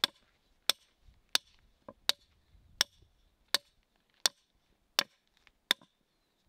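Hammer blows in a steady rhythm, about nine sharp strikes, one every three quarters of a second, driving something into a wooden step board on a path.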